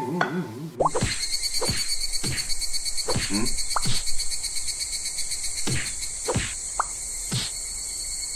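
A steady, densely pulsing insect chorus starts about a second in, the summer ambience of the meme's park scene. Short rising chirp sound effects pop up over it every second or so.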